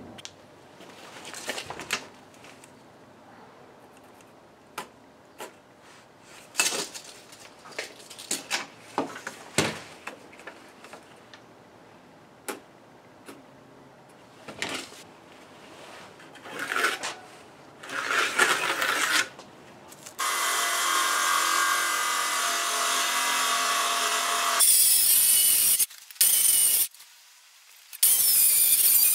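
Scattered knocks, clicks and scrapes of a tape measure and pencil being worked on a wooden bench top, then about two-thirds of the way through a cordless circular saw starts and cuts through the wooden table end, running loudly with a brief dip and a short stop near the end before cutting on.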